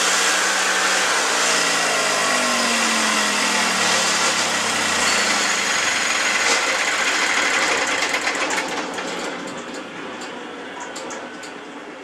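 Briggs & Stratton 18-horsepower twin-cylinder engine running steadily, now starting and running after a no-start repair. About eight seconds in the sound falls away to a quieter level with a few light clicks.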